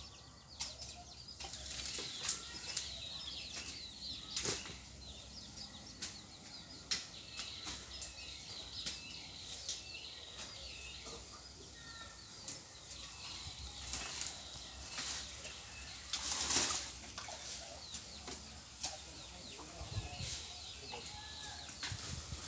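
Outdoor rural ambience: small birds chirping and twittering throughout, with scattered rustles and clicks and a louder rustle about sixteen seconds in.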